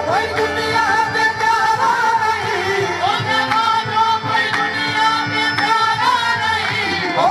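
Qawwali being sung: a lead voice in wavering, gliding phrases over held harmonium chords, with drumming and hand-clapping keeping a steady rhythm.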